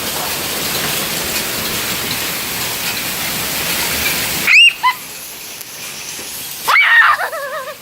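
Heavy rain mixed with hail pouring down in a steady hiss that cuts off abruptly about four and a half seconds in. Short high-pitched squeals follow, twice, and a wavering high cry near the end.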